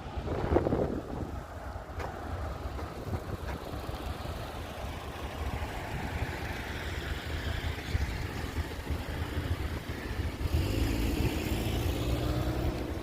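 Motor vehicle traffic on a wet street: a low engine rumble throughout, with a tyre hiss that swells and fades mid-way, and a steady engine hum with a distinct pitch from a vehicle close by near the end.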